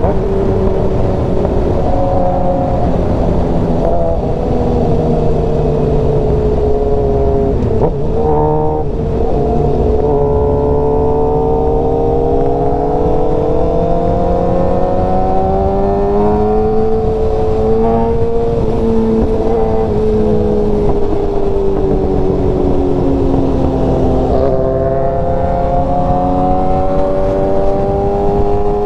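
Sport motorcycle engine at highway speed, its pitch climbing and sinking with the throttle, with gear changes about 8 seconds in and again about 24 seconds in. Heavy wind rush runs underneath.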